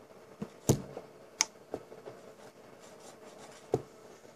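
A few sharp clicks and knocks of handling on the bench, the loudest a little under a second in and another near the end, over a faint steady hum.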